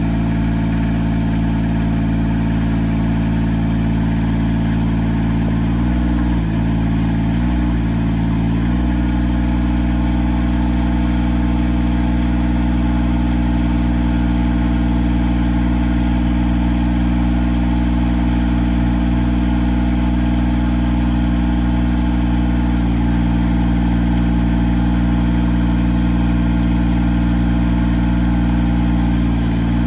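Engine of an Altec AT37 tracked backyard lift running steadily, its pitch sagging briefly three times between about six and nine seconds in.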